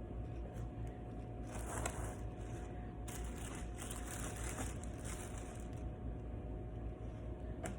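Rustling, crinkling handling noise for a few seconds, starting about a second and a half in, over a steady low hum.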